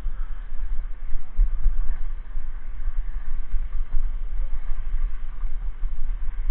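Wind buffeting an action camera's microphone: a loud, gusty low rumble that rises and falls unevenly, with a faint hiss above it.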